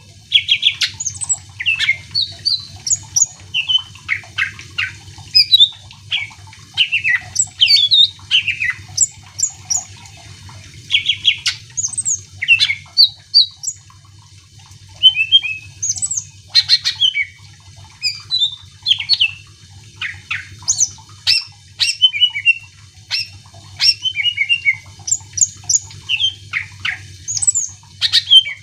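A green leafbird (cucak ijo) singing energetically: rapid, varied phrases of short sweeping whistles and chips, broken by brief pauses, over a steady low hum.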